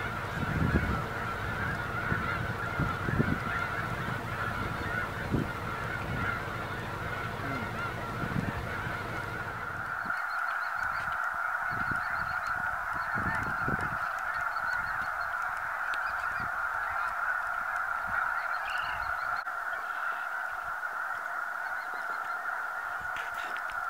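A huge flock of snow geese calling all at once, a dense, steady din of overlapping honks.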